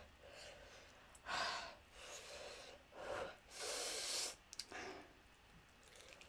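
A woman breathing heavily, about four audible breaths spaced roughly a second apart, the longest near the middle, then a few small mouth clicks; she is breathing through the burn of the extremely hot Blazin' wing sauce.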